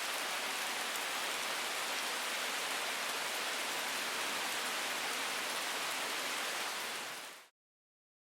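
Steady rain falling in woodland, with wind. The sound fades quickly about seven seconds in and stops, leaving silence.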